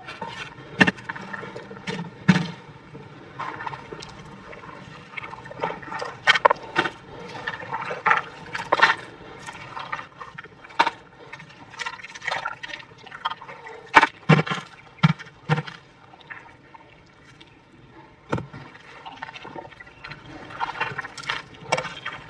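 Digging and working wet, muddy soil: irregular scrapes and knocks of a metal digging tool in the earth, and wet squelching as a foot is pushed down into the muddy hole.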